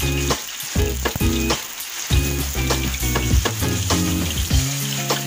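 Banana fritters sizzling in hot oil in a wok, over background music with a steady beat.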